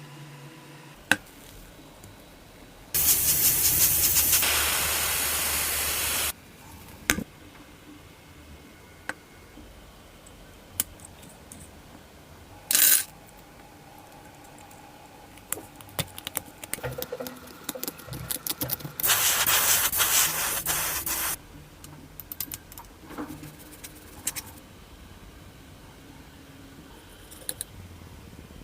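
Two bursts of loud spraying hiss, each about three seconds long. Scattered clicks and taps of handling fall in between.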